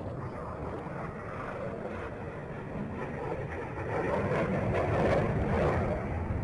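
Jet aircraft engines heard as a noisy rumble that swells louder from about four seconds in, peaks near five seconds, then eases, as of jets passing during an aerobatic display.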